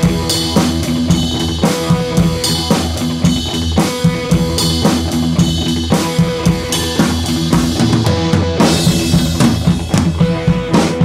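Background music with a steady drum-kit beat, kick and snare hits marking an even rhythm over sustained instrument tones.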